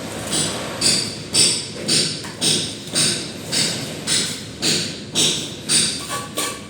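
Steel plastering trowel scraping wet plaster or cement render, in rapid even strokes about two a second.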